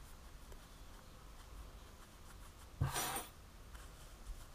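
Hands stuffing a crocheted piece with polyester fibre filling: faint rubbing and handling, with one short rustle and a soft bump about three seconds in.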